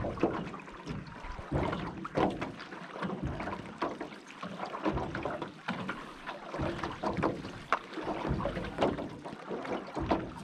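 Small rowboat being rowed: irregular oar strokes with knocks and water splashes every half second to a second.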